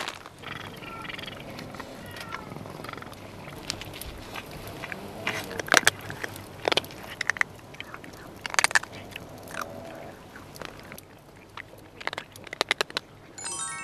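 A cat meowing softly a few times, among scattered sharp clicks and taps. A quick run of chime-like notes follows near the end.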